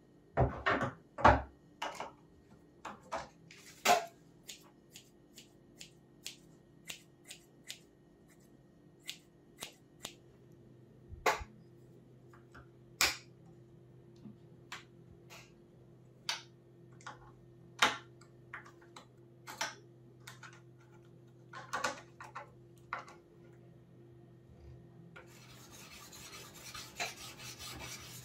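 Sharpening stone on the guide rod of a homemade knife-sharpening jig working against steel: a few loud scrapes and knocks at the start, then scattered metallic clicks and taps as a kitchen knife is clamped into the jig. Near the end, steady back-and-forth rasping of the stone along the knife's edge.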